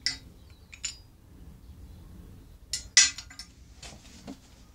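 Sharp clinks of metal on porcelain as a toilet flush lever is set down on a porcelain tank lid: a click at the start and another just under a second in, a louder cluster of clinks about three seconds in, and a duller knock near the end.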